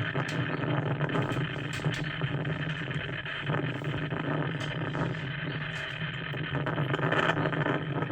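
Steady low hum of a vehicle engine running at idle, with a few faint ticks.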